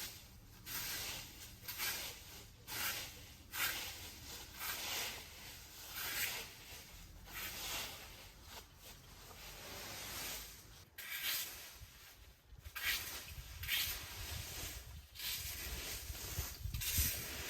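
Repeated rough scraping strokes, about three every two seconds, with a short pause about two-thirds of the way through.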